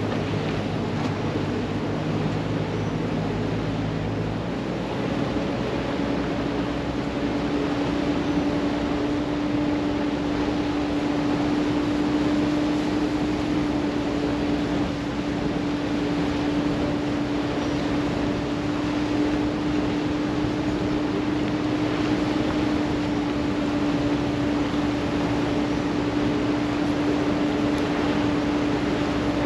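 Wooden speed boat's engine running steadily under way, over a constant rush of water and wind. About five seconds in, the engine's low drone steps up to a higher, steady note.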